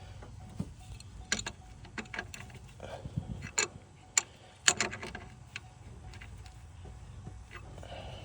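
Irregular metallic clicks and taps of a hand wrench at work on the alternator cable nut in a truck's engine bay, some sharp and some soft, with a faint low hum underneath.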